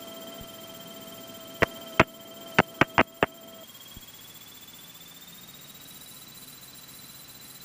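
Electrical whine and hum in the aircraft's headset or intercom audio, with six sharp clicks over the first three seconds or so. About halfway through, the lower tones stop and the high whine rises slightly, then holds steady.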